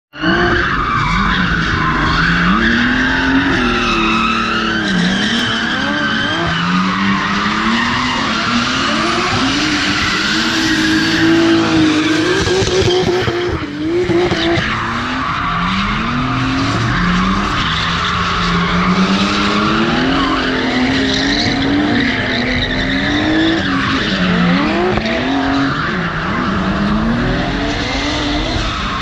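Drift cars sliding in tandem, their engines revving hard with the pitch swooping up and down as throttle is worked through the slides, over a steady screech of spinning tyres.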